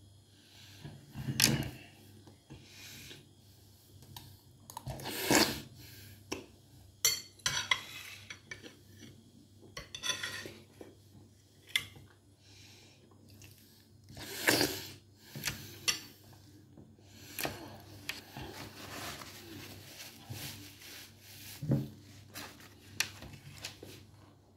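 Cutlery clinking and scraping against a plate while eating, in irregular clicks and short bursts.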